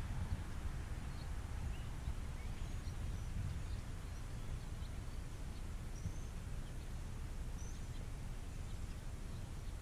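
Steady low outdoor rumble, like wind on the microphone, with a few faint, scattered bird chirps.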